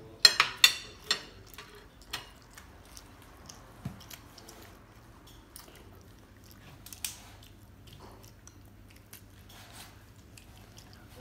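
Children eating: a quick run of sharp clicks from a fork near the start, then scattered soft clicks of chewing and mouth sounds.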